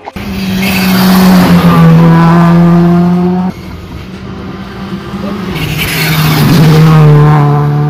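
Rally cars at full speed on a wet tarmac stage. One car's engine is loud for the first three and a half seconds and then cuts off suddenly. A Škoda Fabia R5, with its 1.6-litre turbocharged four-cylinder, then approaches and comes past, getting louder toward the end.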